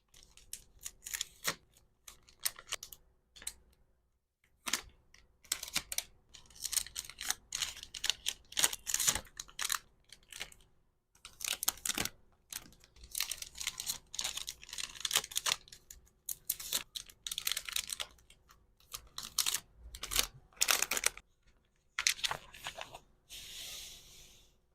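Close-miked packing sounds: quick runs of small clicks and crinkles as plastic packaging and small accessories are handled, broken by short pauses, with a longer rustle near the end.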